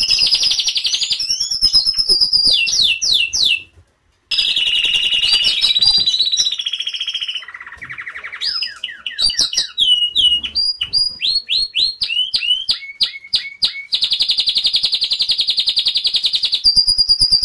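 Domestic canary singing a long song of fast rolling trills and rapidly repeated downward-sweeping notes. The song has a brief silent break about four seconds in.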